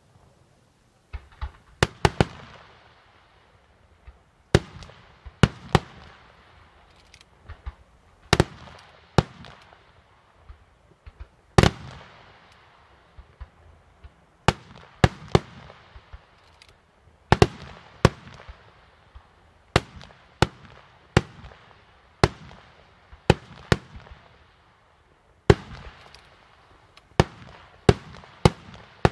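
Aerial firework shells bursting in a fireworks display: a steady run of sharp bangs, about one or two a second at irregular spacing, each followed by a fading echo. The bangs begin about a second in.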